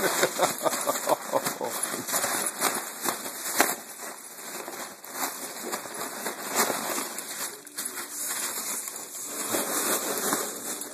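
Foil balloon crinkling and crackling as a small dog bites and paws at it: a dense run of rustles and sharp clicks.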